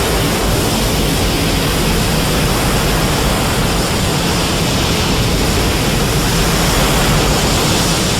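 Godzilla's Infinite Heat-Ray sound effect: a loud, steady, dense rush of noise filling everything from deep rumble to high hiss, held at an even level as the beam fires continuously.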